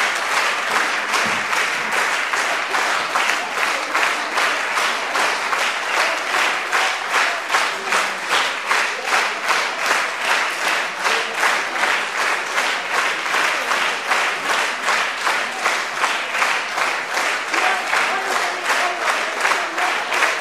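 Theatre audience applauding in unison: steady rhythmic clapping at about two claps a second.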